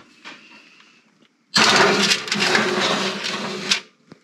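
Metal sheet pan being slid onto a wire oven rack: a loud, steady scrape of about two seconds, starting about a second and a half in and cutting off suddenly, then a short click just before the end.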